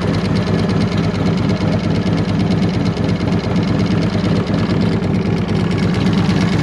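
Harley-Davidson Electra Glide's air-cooled V-twin idling steadily. The owner says it has a slight engine tick that he thinks is probably a loose cam.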